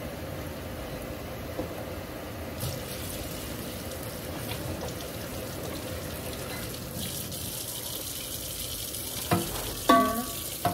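Food frying in a pan: a steady sizzle that grows brighter about seven seconds in, with a couple of knocks and a short ringing clink near the end.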